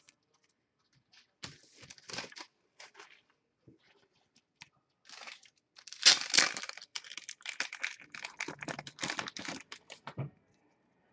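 A football trading card pack wrapper being torn open and crinkled by hand, with short crackles about two seconds in and a longer, louder bout of tearing and crumpling from about five seconds in until near the end.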